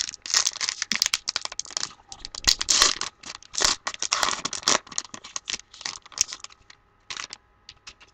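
The foil wrapper of a 2015 Topps Gypsy Queen baseball card pack is torn open and crinkled in a run of crackling rustles over about five seconds. Fainter scattered clicks follow, and it goes quiet near the end.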